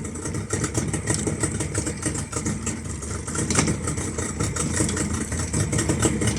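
Yamaha 30 hp outboard motor running steadily at low speed in reverse gear, with rapid even firing pulses. The owner says its carburettors are running a little too rich.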